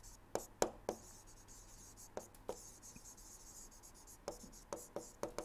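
Faint stylus writing on a tablet screen: irregular light taps and scratches as words are handwritten.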